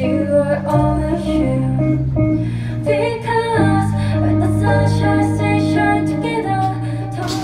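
A woman singing a slow song to guitar accompaniment.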